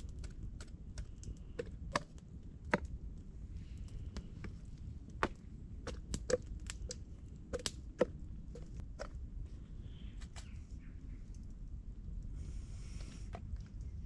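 Irregular sharp clicks and knocks, a dozen or so scattered through, over a steady low rumble, with a brief rustling scrape near the end.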